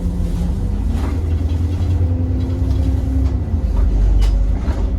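Diesel bus engine running with a heavy low rumble; its note rises about a second in and eases back down around three and a half seconds, with a few short knocks.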